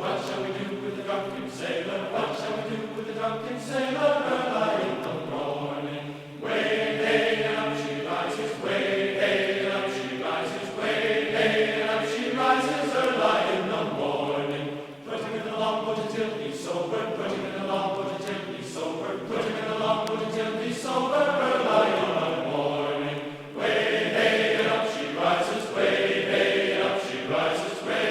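Music of sustained choir-like chanting voices, moving in long phrases with short breaks between them.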